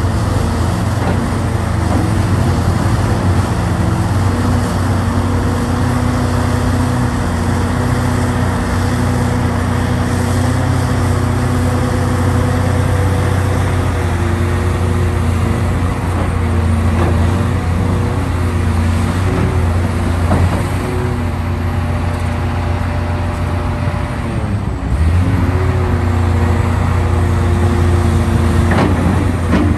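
Hitachi Zaxis 670 hydraulic excavator's diesel engine running steadily under working load as the machine digs and swings, its note shifting in pitch several times and dipping briefly before picking up again near the end.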